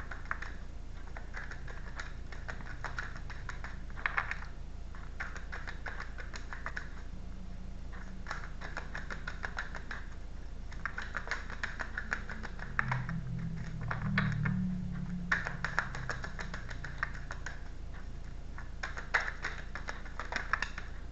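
A deck of tarot cards being shuffled by hand: spells of rapid papery card clicks lasting one to three seconds each, with short pauses between them.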